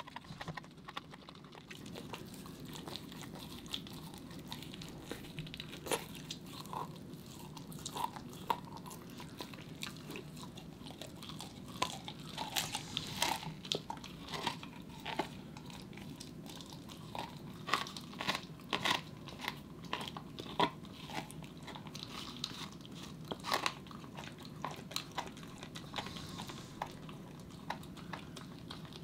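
A corgi gnawing a raw meaty bone: irregular sharp crunches and clicks of teeth scraping and biting on bone, coming thickest through the middle stretch.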